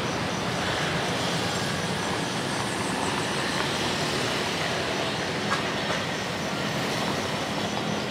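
Steady city traffic noise, mostly motorbikes and scooters running along the road, with one sharp click about five and a half seconds in.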